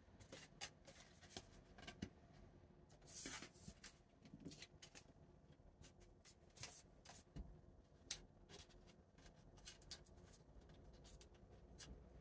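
Faint, scattered small clicks, taps and rubbing as hands handle a pegboard and its plastic wall mounts against a wall, with a longer rub a little after three seconds in.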